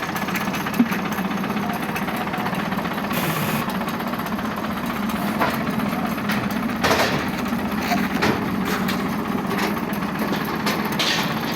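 Heavy earthmoving machine's engine running steadily, with scattered metallic knocks and clanks.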